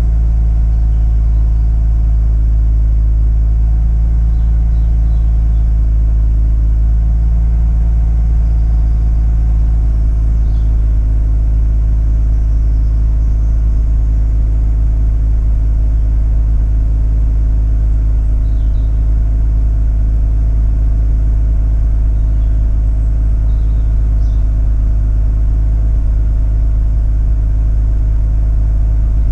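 Mazda RX-8's twin-rotor Renesis rotary engine running at a steady cold high idle, half a minute after a cold start. At this stage the misfire the owner is chasing is not noticeable; the cause later proved to be incorrectly wired injectors.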